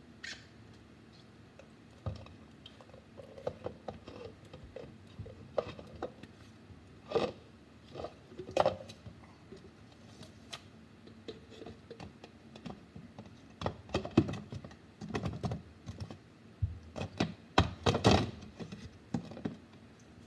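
Glass jar of blended icy slush being tipped and shaken out over a cup: irregular knocks, clinks and scraping as the slush is worked loose, in clusters that grow louder in the second half.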